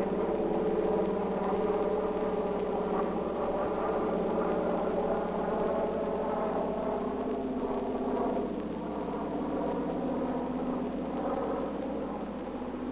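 An air tanker's engines drone steadily through a fire-retardant drop, with a slowly wavering pitch.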